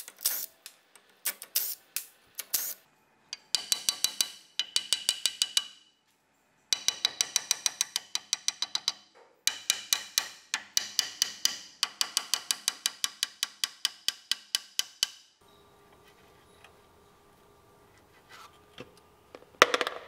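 Hammer tapping on a Nissan Patrol GU front steering knuckle in quick runs of about six to eight blows a second, each blow ringing off the metal, to free a stuck kingpin bearing. The tapping stops about 15 seconds in, and there is a louder clank near the end.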